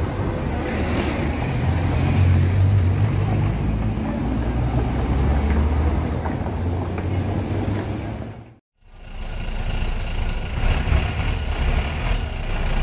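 Street traffic: buses and cars passing with a steady low engine rumble. The sound cuts off abruptly about two-thirds of the way through, and a different sound with faint steady tones follows.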